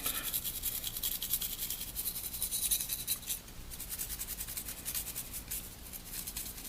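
Soft-bristled toothbrush damp with alcohol scrubbing a phone's circuit board in quick back-and-forth scratchy strokes, cleaning corrosion off water-damaged conductors. The strokes grow lighter about halfway through.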